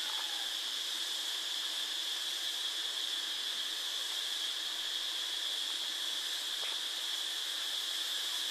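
Steady high hiss with a constant high-pitched whine running through it and a faint click about two-thirds of the way in.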